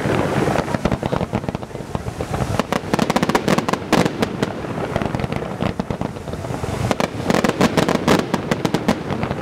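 Aerial fireworks bursting overhead with bangs and crackling. Dense runs of rapid cracks come about three seconds in and again near eight seconds.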